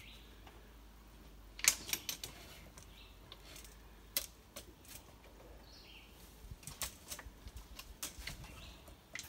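Irregular clicks, taps and scuffs of a hiker's boots and gear against rock while squeezing through a narrow rock passage. The loudest knock comes a little under two seconds in.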